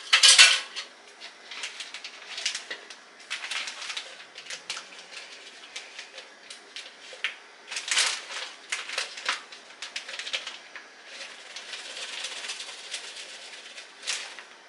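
Plastic zip-top bag crinkling and rustling in irregular bursts, with clicks and scrapes from a plastic cup, as sauce is emptied into a bag of cauliflower florets. The sharpest crackle comes right at the start and another about 8 seconds in.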